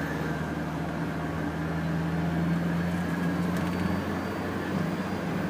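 Engine and road noise of a moving road vehicle heard from inside the cabin: a steady low drone whose pitch creeps slightly upward, then breaks off about four seconds in and resumes.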